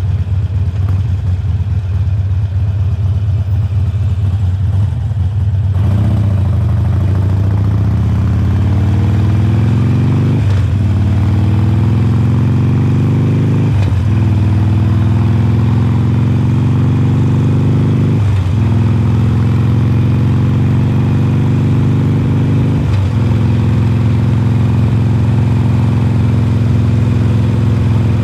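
2020 Harley-Davidson Forty-Eight's 1200 cc V-twin through Khrome Werks slip-on mufflers, running low and steady for about six seconds, then pulling away and accelerating through four gear changes, the pitch climbing in each gear and dropping at each upshift.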